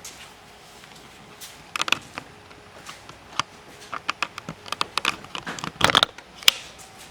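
Camera handling noise: a string of sharp clicks and knocks starting about two seconds in, as the camera is picked up and carried, with the loudest knocks near the end.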